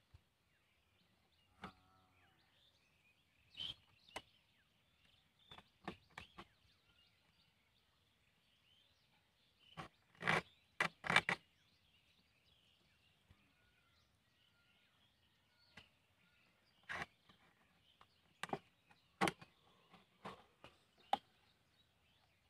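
Thin plastic bottle crackling and clicking in short, scattered bursts as hands press and fit the cut pieces of a bottle fish trap together, the loudest cluster about ten seconds in. A faint steady hiss lies underneath.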